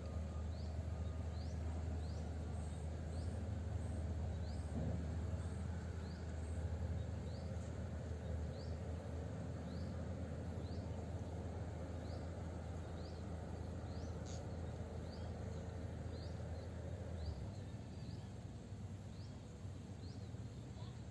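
Swamp ambience: a small creature calling in short, high, rising chirps, roughly two a second, over a steady low rumble that drops away near the end.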